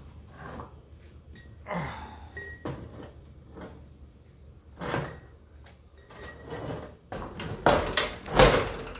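Intermittent knocks and clunks of things being handled, the loudest near the end, with a few faint brief squeaks in between.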